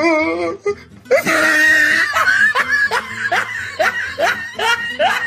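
Meme laughter sound effect: a person laughing loudly in a rapid run of short, rising 'ha' syllables, after a wavering voice cuts off about half a second in.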